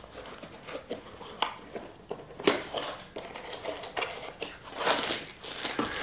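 A small cardboard box being opened by hand, its flaps scraping and tapping, then a plastic bag of pipe fittings crinkling as it is pulled out of the box.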